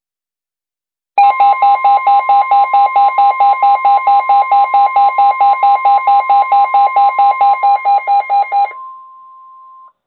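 Midland NOAA weather radio alert for a severe thunderstorm warning: starting about a second in, a loud pulsing beep, about five beats a second, sounds over the broadcast's steady warning alarm tone. The beeping stops near the end and the steady tone carries on alone for about a second before cutting off.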